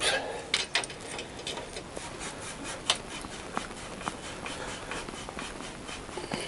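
Long engine-mount through-bolt on a Honda CBR1000F being worked out of the frame with locking grips: irregular small metallic clicks and scraping as the bolt is twisted and pulled.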